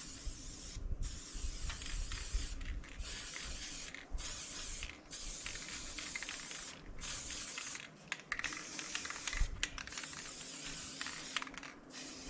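Paint being sprayed in repeated hissing bursts of a second or two, with short gaps between them, while wind rumbles on the microphone.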